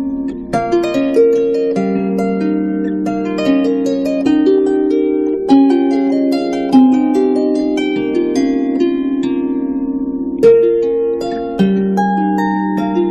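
Background music: a harp playing a slow melody over plucked chords, each note ringing and fading.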